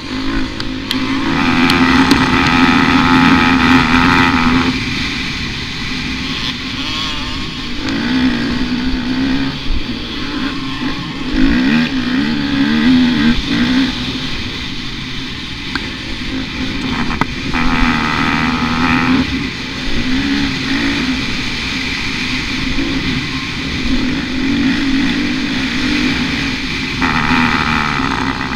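Motocross bike's engine heard from the rider's helmet, revving up and down through the throttle and gears as it is ridden round the track, with the loudest full-throttle pulls about a second in, around the middle, and near the end.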